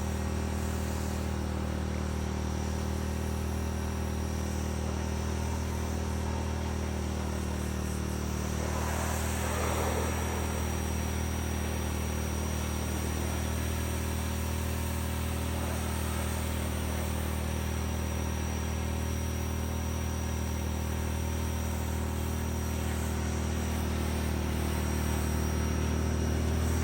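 Portable generator and electric pressure washer running steadily under load, giving a constant hum.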